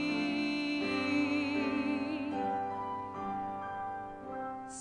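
A female solo singer holds the last note of a sung line with vibrato for about the first two seconds, then it fades and soft keyboard accompaniment plays alone until she comes in again at the end.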